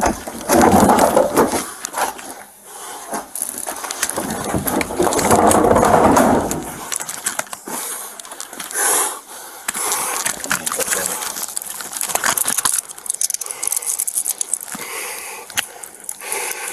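A scuffle as a man is held down on concrete and handcuffed: clothing rustling, scraping and small knocks. In the first seven seconds there are two long, loud stretches of rubbing close to the microphone.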